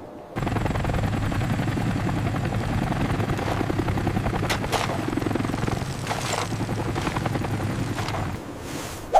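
A rescue vehicle's motor running with a steady, rapid chopping beat and a low hum. It starts suddenly about half a second in and cuts off near the end.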